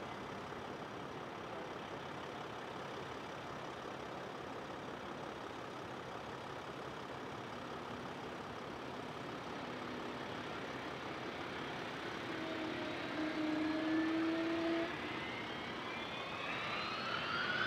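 Gulfstream G600 business jet's twin turbofan engines running up for takeoff: a steady jet rush, with a whine that rises in pitch over the last several seconds as the engines spool up.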